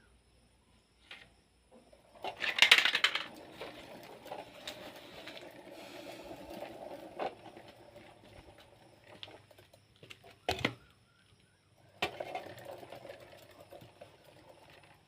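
Hard plastic toy vehicles clattering and rattling as they are handled and rolled on a hard surface. There is a loud clatter about two seconds in, a rolling rattle after it, a sharp knock about ten seconds in and another rattling stretch near the end.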